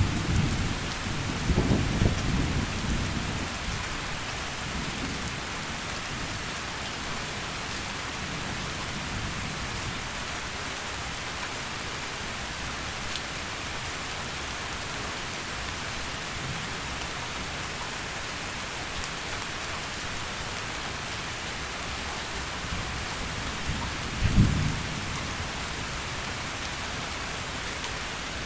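Steady heavy rain hissing, with a low thunder rumble that fades out over the first few seconds. There is one short, sharp low thunderclap near the end.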